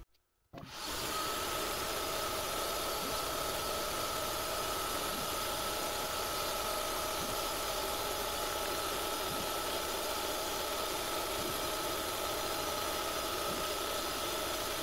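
SIEG X3 CNC mill's spindle running at 2700 RPM while an end mill takes a light 0.1 mm facing pass across an aluminium block at 200 mm/min. It is a steady whine over a dense hiss of cutting, starting suddenly about half a second in.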